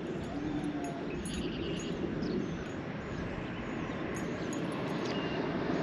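Outdoor lakeside ambience: birds chirping and whistling now and then over a steady low rushing background.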